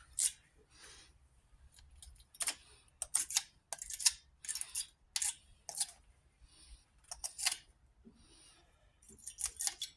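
Battery terminal cleaning brush being twisted and scraped inside a lawn tractor's battery cable clamp, scrubbing off corrosion: a run of short, irregular scratching strokes with brief pauses between them.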